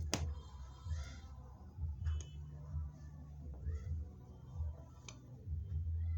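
Hand-press rivet machine setting beads onto a chiffon scarf: one sharp click just after the start, then fainter clicks about two and five seconds in, over a low rumble that comes and goes.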